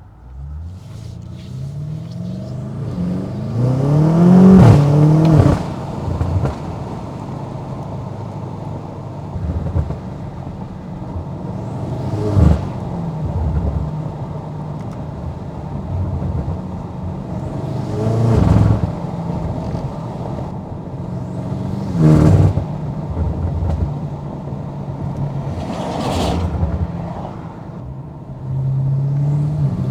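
2020 BMW M8 Competition's twin-turbo V8, tuned to stage 2, accelerating hard with its pitch rising through the first few seconds, loudest about four to five seconds in. After that it runs on at a steadier note, broken by short sharp surges every four to six seconds.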